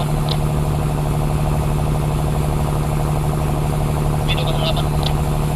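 An engine running steadily at a constant speed, with a strong, even low hum, during the tow of an abandoned boat.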